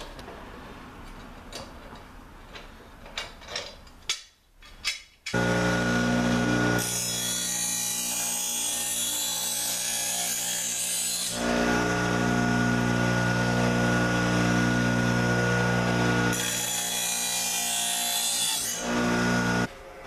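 A few light clicks and knocks at first. Then an electric bench grinder runs with a steady motor hum while a lawn mower blade is pressed against the grinding wheel twice: a harsh grinding rasp for about four seconds, then about two seconds more. The hum cuts off suddenly near the end.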